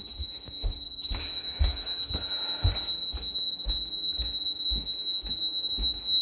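Honeywell alarm panel sounding a steady, unbroken high-pitched alarm tone, set off by the opened living room window sensor while the system is armed. Soft low thuds come about twice a second underneath.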